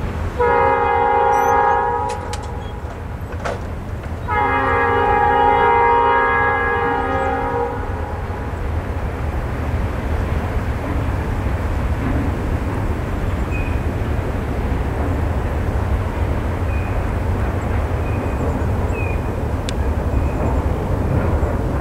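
Norfolk Southern freight locomotive's air horn sounding two blasts, a short one and then a longer one of several pitches together. After the horn, a steady low rumble continues.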